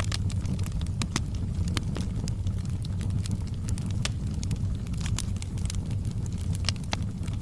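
Wood fire burning with a steady low rumble and irregular sharp pops and crackles.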